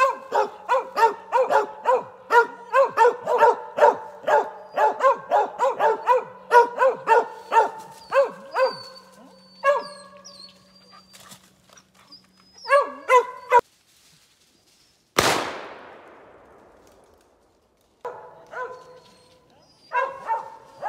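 A Mountain Cur treeing a squirrel, barking steadily at about two barks a second at the base of the tree, pausing, then barking again. About two-thirds of the way through comes a single sharp report with a trailing echo, a gunshot at the treed squirrel.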